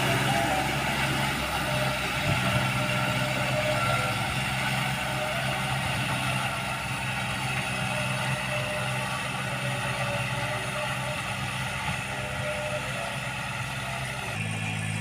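A heavy vehicle's engine running steadily: a constant low hum under a broad hiss, with no revving.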